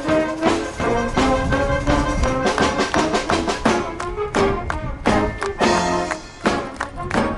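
A high school wind band playing live: brass instruments carry the tune over a steady run of drum strokes.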